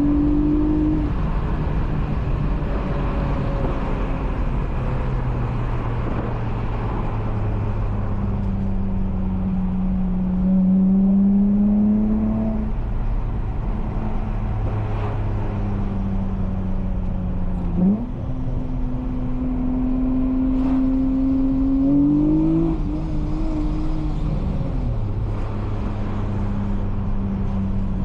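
Honda J32A3 V6 in a six-speed manual Accord, running through a loud Skunk2 Megapower single-exit exhaust while driving. It cruises with a steady note, pulls up gently in pitch twice under light acceleration, and drops in pitch at two gear changes, about a third and three quarters of the way through, with a quick rev rise in between.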